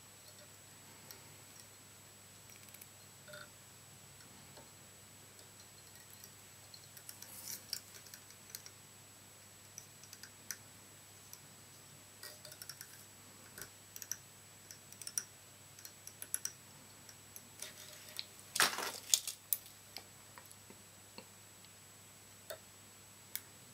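Faint, scattered small clicks and ticks of fly-tying handling at the vise while a starling hackle is wound and tied down on a tiny jig hook, with a brief louder cluster of clicks about three-quarters of the way through. A faint steady hum runs underneath.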